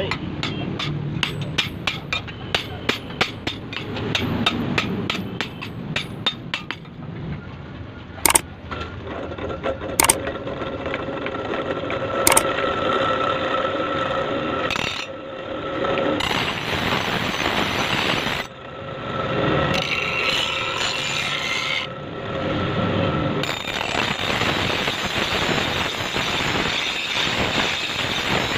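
A hand hammer striking the axe on a steel block anvil, a quick run of blows and then a few single strikes. Then an electric bench grinder running with a steady whine, its wheel grinding the axe's steel in stretches as the blade is pressed on and lifted off.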